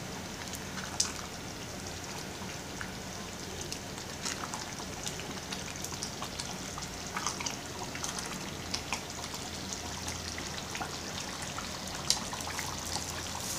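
Tripe stew in tomato sauce simmering in a pot on a gas stove, with small bubbles ticking and popping at the surface and a plastic spatula stirring through it. A steady low hum runs underneath.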